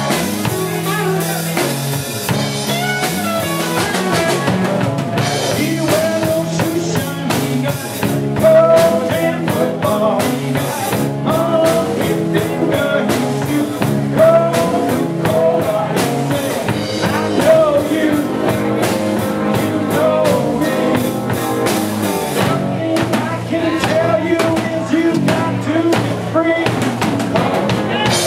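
Live rock band playing: drum kit, acoustic guitar and electric guitar, the drums busiest through the middle.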